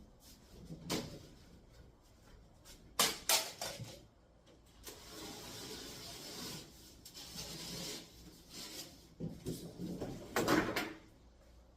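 A sheet of drywall being cut by hand: a knife drawn along the paper face scrapes for about two seconds midway, with sharp knocks and handling of the board before and after it as the sheet is snapped and moved.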